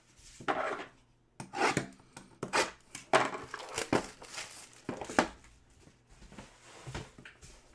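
Trading cards and their packaging being handled: a run of short, uneven strokes of cardboard and plastic sliding and rustling against each other.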